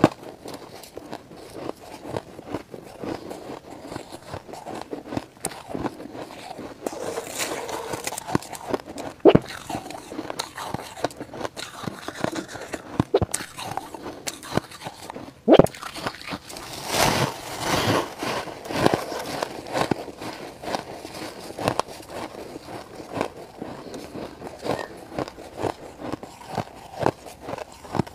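Close-up chewing and crunching of frost-coated ice, a dense run of sharp cracks and crackle. The loudest bites come about 9, 15 and 17 seconds in.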